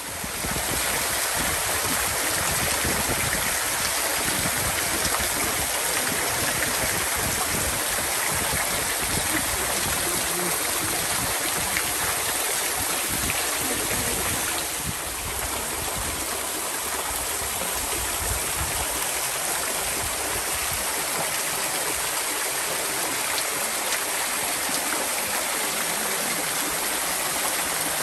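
Water from a partly frozen spring waterfall falling through hanging icicles and splashing steadily into the pool below.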